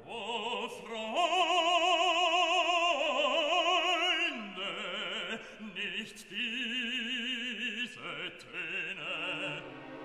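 Classical music dubbed over the footage: an operatic voice singing long held notes with wide vibrato, changing pitch every second or two.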